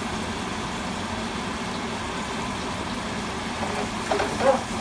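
Kitchen range hood exhaust fan running steadily over peppers and onions sizzling in a sauté pan as they are stirred. A brief louder sound comes about four seconds in.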